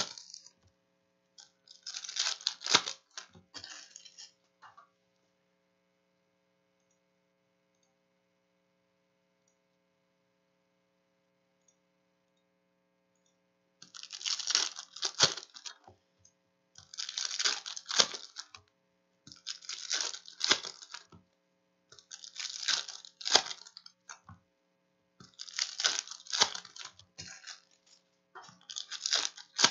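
Trading card pack wrappers being torn open and crinkled by hand, in crackly bursts of a second or two. After one opening near the start there is a stretch of near silence, then six packs are ripped open in quick succession, about one every three seconds.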